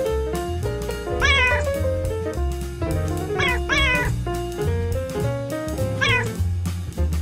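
Background music with a steady beat and bass line, with a cat meowing four times over it.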